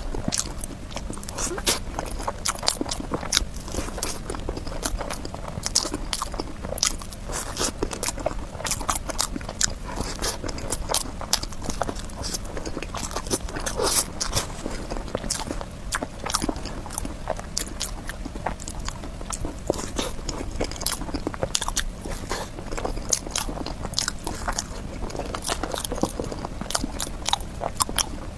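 Close-miked eating of dessert cake: biting and chewing, with a dense, continuous run of short, sharp wet mouth clicks.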